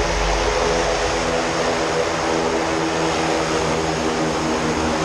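Propeller engine of a jump plane running steadily, an even hiss with a low hum under it.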